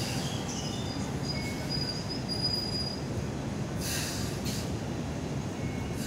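Hong Kong Light Rail car pulling away: a steady low running rumble, with a faint high wheel squeal from about one to three seconds in. Two short hissing bursts come near four seconds in.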